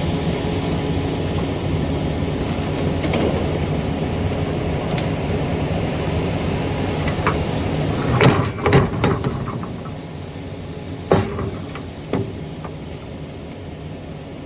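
Concrete mixer truck's engine running steadily while leftover concrete is dumped off the truck. A few loud knocks come about eight seconds in and again near eleven and twelve seconds, after which the running noise is a little quieter.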